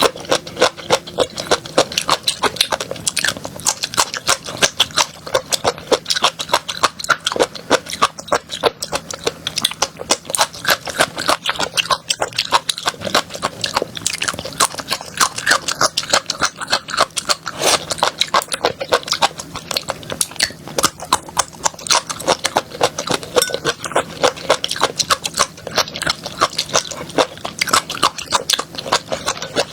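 Close-miked chewing of crunchy food: a rapid, continuous run of crisp crunches and clicks.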